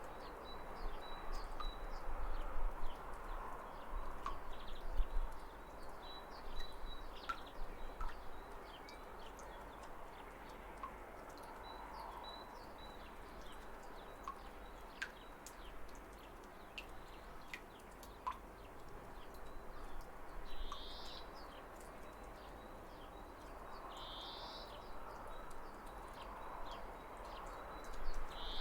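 Waterfall rushing steadily under scattered bird chirps, with three louder calls a few seconds apart in the last third.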